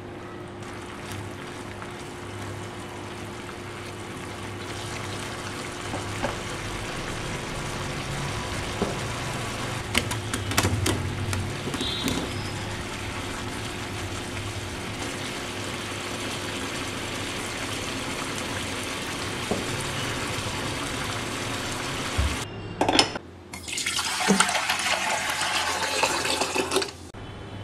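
A creamy sauce bubbling and simmering in a frying pan, with a few sharp clicks of a utensil against the pan around ten seconds in. Near the end, tap water runs into a saucepan for about three seconds.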